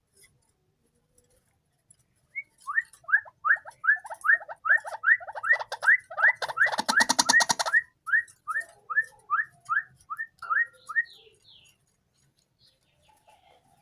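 White-breasted waterhen calling: a long run of short, upward-sliding notes at about three a second, starting a couple of seconds in and stopping near the end, with a fast rattling stretch about halfway through.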